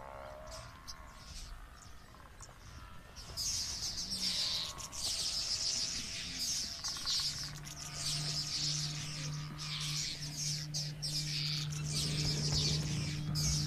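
A flock of oxpeckers calling in a dense, high chatter that breaks out loudly about three seconds in and keeps going. A low, steady hum joins underneath about halfway through.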